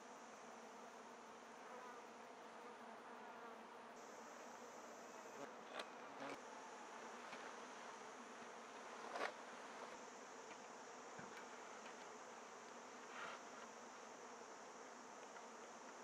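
Faint, steady buzzing of flying insects in woodland, with a few short knocks from handling a wooden pole, the loudest about nine seconds in.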